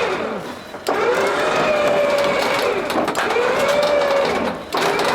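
Recovery truck's winch motor whining as it drags a car up onto the bed, in a series of short pulls that each rise and then sag in pitch.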